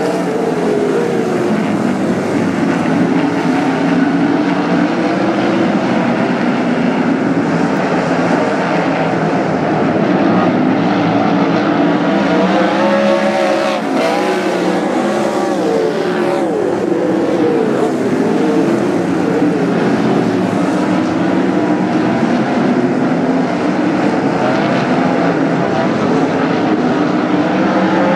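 A field of winged sprint cars racing on a dirt oval: several methanol-burning 360-cubic-inch V8s running hard together, their pitch rising and falling as the cars throttle through the turns and pass by.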